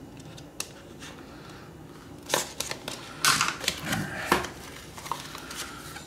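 Small cardboard retail box being opened by hand: clicks and scrapes of the card lid and flaps, with a loud papery rustle about three seconds in and a few sharp clicks after it.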